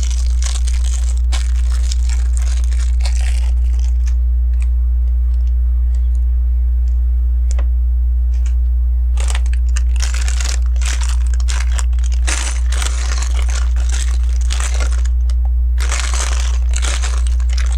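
Loose plastic LEGO pieces rustling and clicking as hands sort through them, in spells of a few seconds with a quieter pause in the middle, over a steady low hum.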